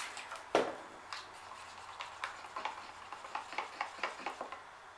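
A stir stick working thick acrylic pour paint in a plastic cup, tapping and scraping against the cup in a run of faint, irregular ticks, with one louder knock about half a second in. The paint is being mixed to pouring consistency.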